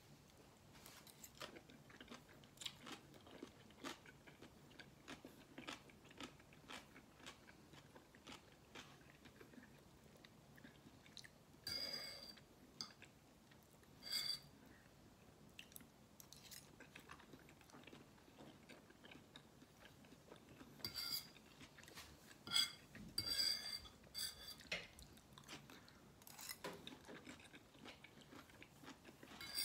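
Close-up chewing of noodles and vegetables, a steady run of soft wet mouth clicks and crunches. A metal fork clinks and scrapes on a ceramic plate, with short ringing touches about twelve and fourteen seconds in and several more in the last ten seconds.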